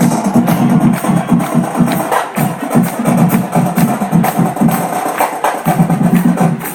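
Marching band playing live, its drumline driving a busy percussive rhythm of snare and drum hits under the music.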